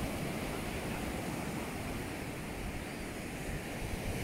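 Ocean surf breaking and washing up a sandy beach: a steady rushing of waves.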